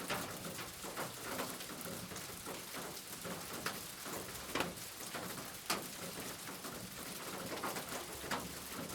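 Steady rain falling, with louder single drops striking a surface every second or so.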